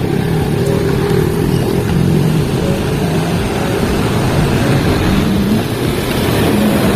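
Steady road traffic noise, with motorcycles and cars passing.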